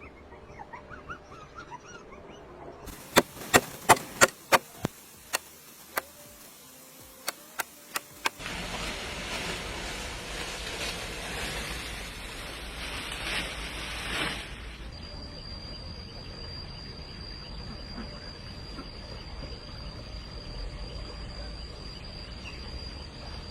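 Faint bird chirps give way to about a dozen sharp knocks in quick succession. Next comes a loud rushing noise for several seconds, and then a steady high-pitched insect call that holds one pitch.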